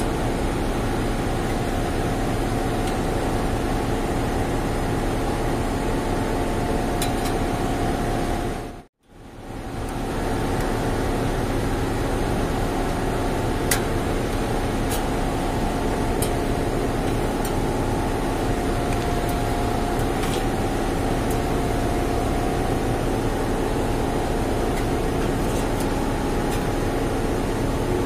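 Steady machinery hum and noise, with a few light clicks from a screwdriver and wires being handled. The sound cuts out for a moment about nine seconds in, then resumes unchanged.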